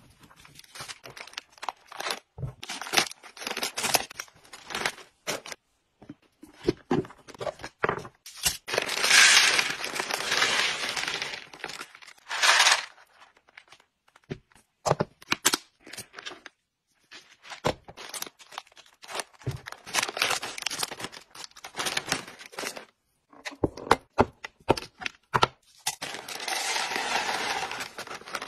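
Plastic treat packaging crinkling and tearing, clicks of plastic storage-box lids and latches, and small dry hamster treats pouring and rattling into a clear plastic box, in several longer stretches of rustle between many short clicks.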